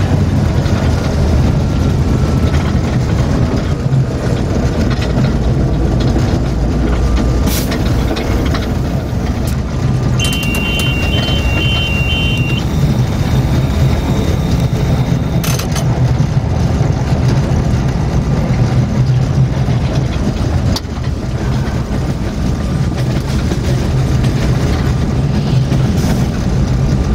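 Diesel engine of an EGM 621 diesel-electric locomotive running steadily, heard inside the driver's cab. About ten seconds in, a high electronic beep sounds in pulses for about two seconds, and a few sharp clicks come at intervals.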